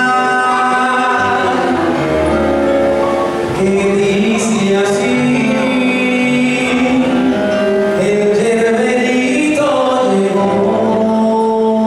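Live stage-show music: a man singing long held notes into a microphone over band accompaniment, with other voices joining in.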